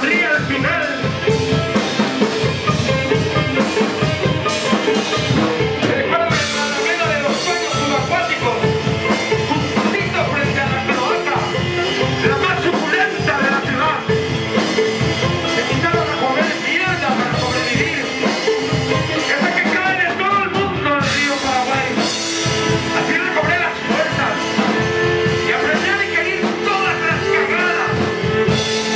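Live instrumental rock: a drum kit, electric guitar and violin playing together. A cymbal wash comes in about six seconds in, drops out briefly a little past twenty seconds, then returns.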